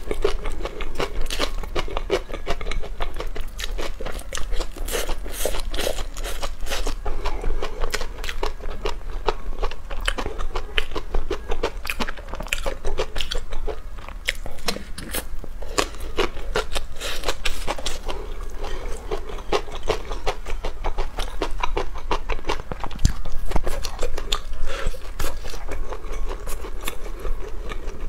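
Close-miked biting and chewing of crumb-coated, deep-fried food on bamboo skewers (Chinese zha chuan), a dense, irregular run of crisp crunches.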